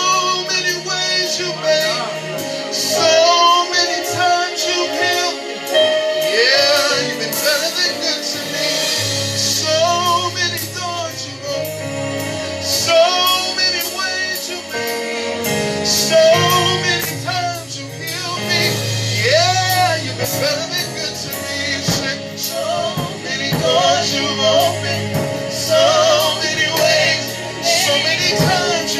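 Gospel worship song with a woman singing an ornamented, wavering lead over sustained chords and bass.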